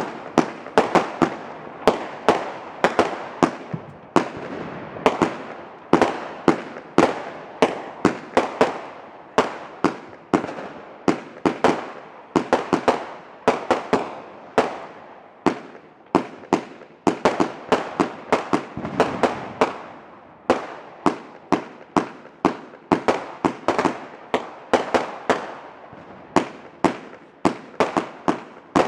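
Fireworks shells launching from the ground and bursting overhead, a rapid, unbroken string of sharp bangs, about two or three a second.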